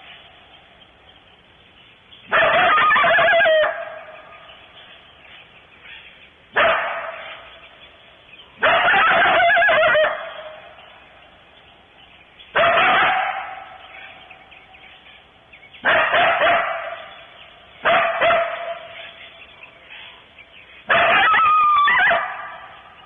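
Coyote barking: seven loud, harsh barks with a short howling tail, each about a second long and spaced two to four seconds apart, each fading away afterwards.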